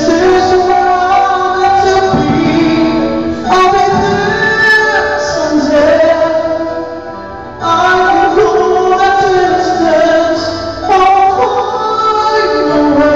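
A man singing a ballad in a high key into a microphone, holding long sustained notes; he pauses briefly about seven seconds in before the next phrase.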